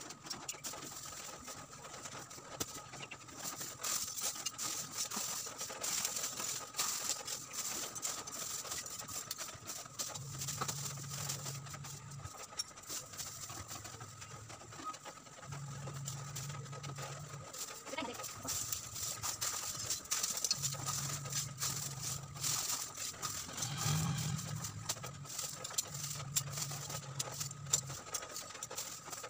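Pieces of coconut-shell charcoal clinking and rattling as they are scooped by hand into a plastic bag, with the bag rustling: a run of irregular small clicks.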